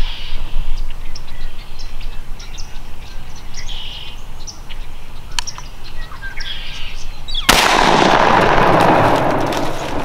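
A black-powder muzzleloader rifle fired once about three-quarters of the way in: a sudden loud boom that rolls on for a couple of seconds. A few faint short high calls come before it.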